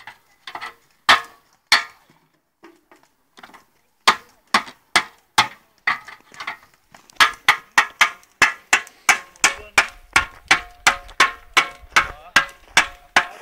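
Metal milk churns of a carbide-shooting rig being struck again and again, each blow sharp and ringing. A few scattered knocks at first, then about seven seconds in a steady run of two to three blows a second.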